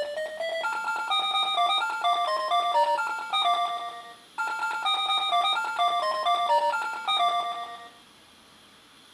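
Electronic beeping jingle from a Funky Doctor pachinko machine. A rising tone ends just after the start, then a short melody of clear beeps plays twice and stops about a second before the end.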